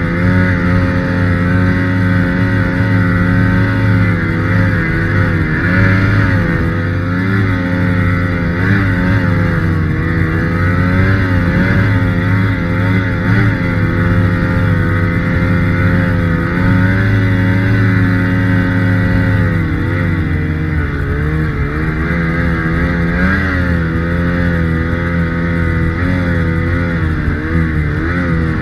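Ski-Doo Summit 850 snowmobile's two-stroke twin-cylinder engine running steadily under throttle. Its pitch rises and falls repeatedly as the rider works the throttle through deep snow.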